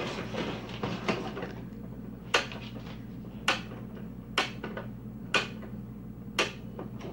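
Pie Face game's hand crank being turned: five sharp plastic clicks about a second apart, one for each turn of a spun five.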